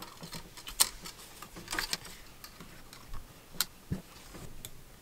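Scattered small, sharp clicks and taps, about five, from fingers and tweezers handling a MacBook Pro's display cable and pressing its connector into place on the logic board. The sharpest click comes just under a second in.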